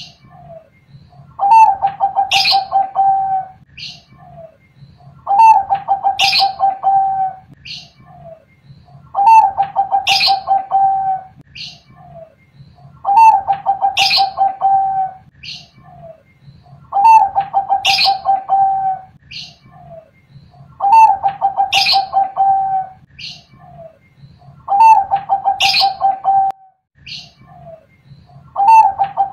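Zebra dove (Bangkok-type perkutut) singing its cooing phrase over and over, about once every four seconds: each phrase is a long rolling coo followed by two short notes.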